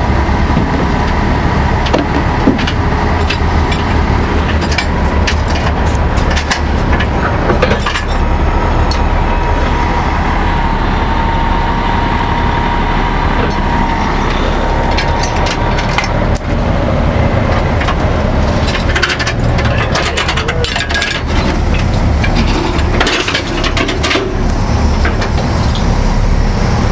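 Heavy-duty wrecker truck's diesel engine running as the truck moves slowly past, with a steady whine through the first half. Sharp clicks and rattles come in later.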